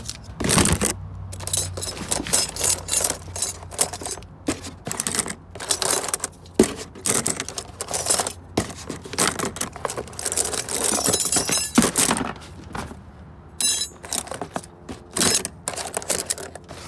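Metal door hinges clinking and clanking against one another as they are grabbed by the handful and dropped into a box, in a quick irregular run of sharp metallic hits.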